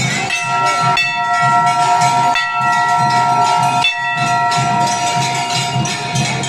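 A loud sustained chord of several horn-like tones, held in three long stretches and stopping about four seconds in, over a steady drum beat and crowd noise.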